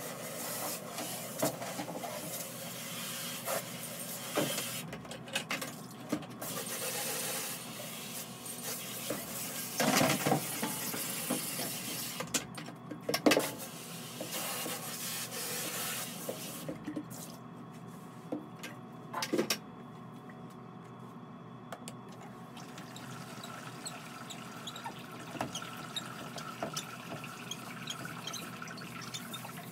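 Liquid ceramic glaze being worked by hand in a plastic bucket: sloshing and pouring noise with a few sharp knocks against the bucket, easing in the last several seconds to quieter drips and small ticks.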